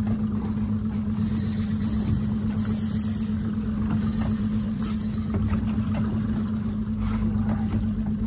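A boat's motor running steadily, a constant hum over a low rumble.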